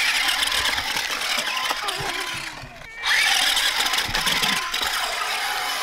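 Spin Master Monster Jam Megalodon Storm, a battery-powered RC toy monster truck, driving hard across beach sand: its small electric drive motor whirs and the tyres churn and spray grit. There is a short lull near the middle before it picks up again.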